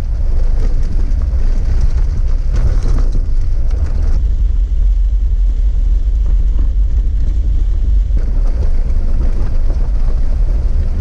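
Jeep Wrangler driving on a gravel dirt road, heard from inside the cab: a steady low rumble of engine and tyres.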